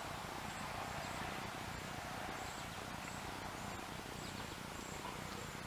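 Steady outdoor background noise with an insect chirping faintly and high-pitched, in short pulses about twice a second.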